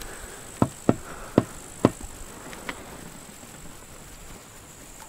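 Four sharp clicks in quick succession, about a third to half a second apart, then two fainter clicks, over a faint steady high-pitched tone.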